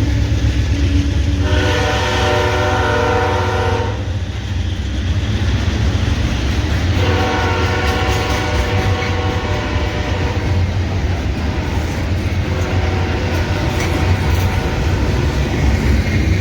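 Diesel freight train passing, its locomotive engines rumbling steadily, while the leading Kansas City Southern locomotive sounds its air horn chord: a blast of about two seconds, then a longer one a few seconds later that fades off.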